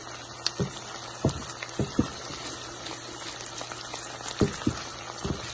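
Rice with onion and whole spices sizzling and bubbling in hot ghee as a wooden spatula stirs it, with a few short knocks and scrapes of the spatula on the pan.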